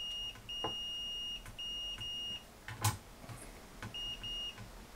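Multimeter continuity beeper giving a steady high beep in on-off stretches of under a second as the test probes make and break contact on the circuit board's solder points, then two short chirps near the end; the beep signals an unbroken connection. A sharp click about three seconds in.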